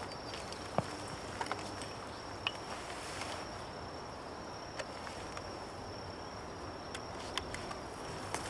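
An insect's steady, high-pitched trill going on without a break over quiet woodland ambience, with a few faint clicks and ticks of twigs or leaves.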